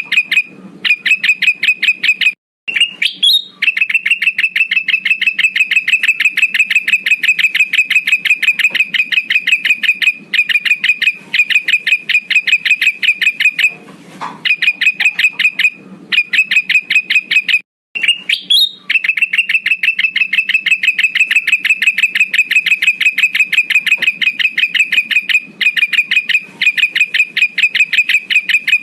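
Lure recording of a male kutilang emas bulbul calling: long, fast runs of clipped notes on one steady pitch, each run opened by a short rising note and broken by brief pauses, repeating as a loop.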